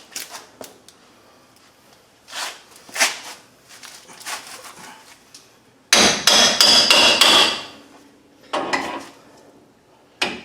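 Metal knocks and clanking as a leaf-spring shackle and its bolt are worked into line. Scattered taps come first, then a quick run of loud, ringing metal strikes about six seconds in, and one more knock near the end.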